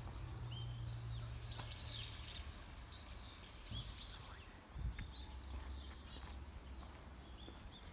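Small birds calling with many short, high chirps and whistles, over a low steady background noise, with a single knock about five seconds in.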